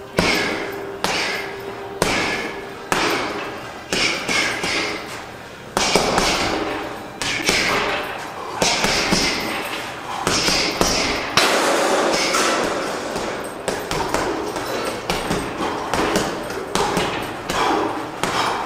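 Repeated sharp knocks and clanks, some ringing briefly. They come about once a second at first and then follow more closely.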